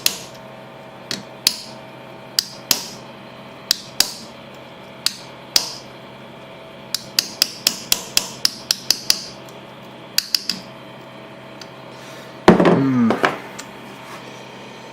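Light hammer taps on the metal parts of a folding knife, each with a short bright ring, coming in irregular groups with a run of about eight quick taps in the middle. The taps are peening and setting a pin. Near the end comes a short, loud falling vocal grunt.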